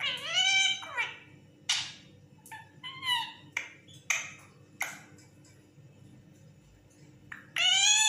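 Lutino Indian ringneck parakeet calling: a string of short, sharp squawks, a few quiet seconds, then one longer, louder call near the end.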